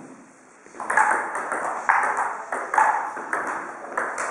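Table tennis rally: after a brief quiet, the ball is served about a second in, then clicks back and forth off the bats and the table in quick, uneven hits.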